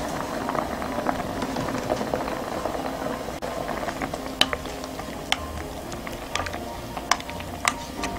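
Doenjang stew bubbling and crackling at the boil in an earthenware pot. In the second half a wooden spoon knocks a few times in the pot.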